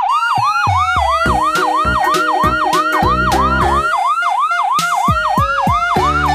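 Electronic ambulance siren in a fast yelp, its pitch swooping up and down about three times a second.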